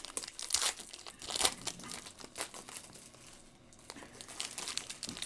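Plastic wrapper crinkling as it is handled, with irregular sharp crackles, the loudest about half a second and a second and a half in, then a quieter stretch past the middle.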